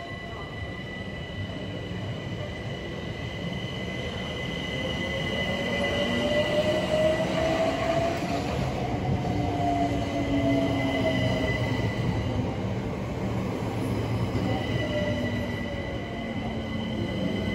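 Southeastern electric multiple units at a station platform: a Class 376 runs in alongside while a Class 465 moves on the next track. Over a steady rumble of wheels on rail and a thin high squeal, an electric motor whine climbs in pitch to a peak about eight or nine seconds in, then falls away as the arriving train slows.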